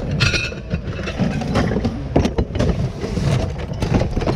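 Rummaging through a bin of mixed secondhand goods: items knocking and clattering against each other, with a brief ringing clink near the start, over a steady low rumble.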